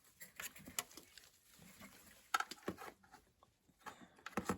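Handling noises from a small lamp being moved about and set down: a scattered series of light taps and clicks, with the loudest couple near the end.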